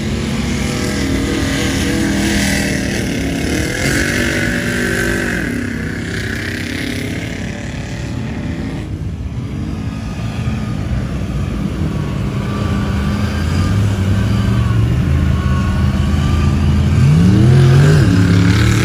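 Mega truck engine running and revving, its pitch climbing and falling in several surges, loudest near the end.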